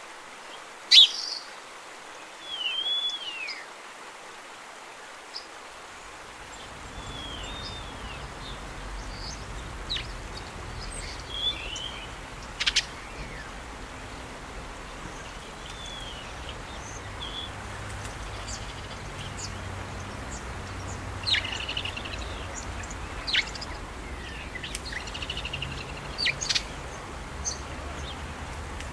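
Wild birds calling off and on, short chirps and curved whistled notes, over a steady outdoor hiss. A low rumble comes in about six seconds in and holds.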